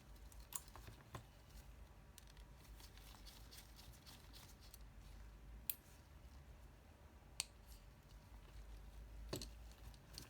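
A few faint, sharp clicks and taps of small tools on a Vivlio Touch Lux e-reader being repaired, spaced a second or more apart, over near-silent room tone.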